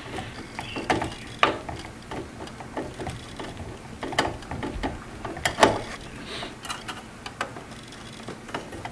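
A screwdriver driving a sheet-metal screw into a microwave oven's magnetron mounting flange by hand, the screw cutting its own thread in the metal. Irregular small clicks and scraping of metal on metal, with a few sharper clicks.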